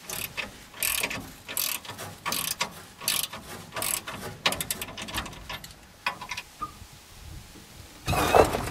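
Socket ratchet clicking in quick runs as it tightens the U-bolt nuts on a leaf helper spring under a pickup's rear axle. A louder clank near the end.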